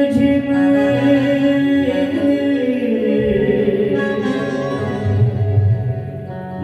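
Devotional bhajan music: instruments carrying held melody notes between sung lines, with the voice perhaps trailing in and out.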